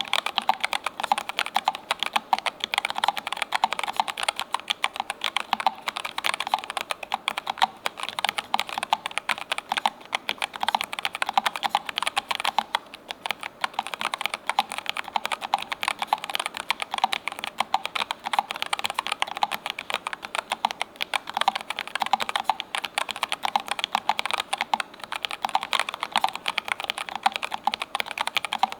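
Continuous fast typing on a Keychron K3 Ultra low-profile mechanical keyboard fitted with Low Profile Milk-POM Red switches, which are linear: a dense, steady stream of keystroke clicks.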